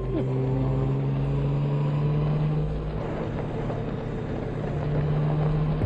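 Large touring motorcycle's engine running steadily at a cruise, its even hum under a haze of wind noise.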